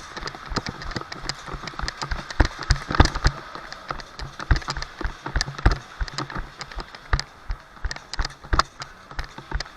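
A run of irregular sharp knocks and taps, several a second and uneven in loudness, over a faint steady low hum.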